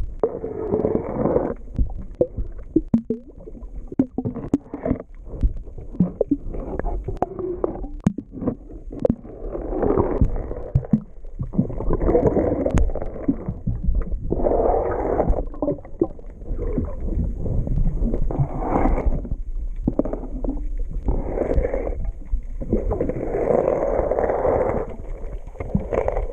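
Scraping and knocking against a boat hull while barnacles are cleaned off, in repeated strokes, with gurgling water and a steady low rumble.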